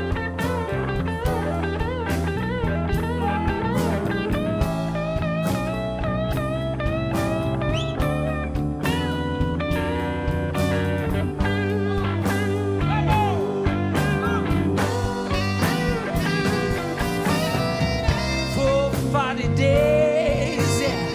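Blues band playing an instrumental break: an electric guitar solo with bending notes over bass and drums.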